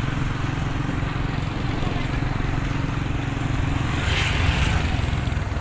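Motor vehicle engine running steadily, heard from on board while travelling. A brief rushing noise swells about four seconds in.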